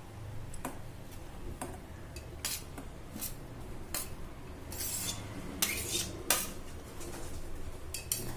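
Metal spoon scraping chopped vegetables off a stainless steel plate into a steel bowl: irregular sharp clinks of spoon on steel with a few short scrapes.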